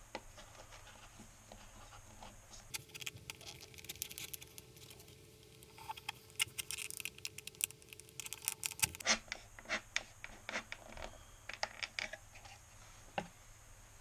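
Thin plastic water bottle crackling and bamboo skewers scratching and clicking as they are pushed through holes poked in the bottle, in irregular bursts, busiest in the middle.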